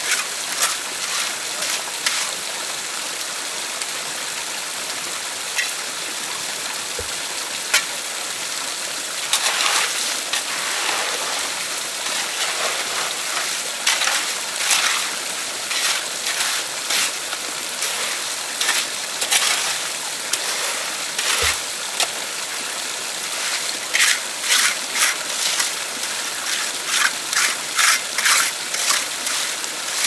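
Water running steadily, with splashes that come now and then at first and fast and close together in the last few seconds.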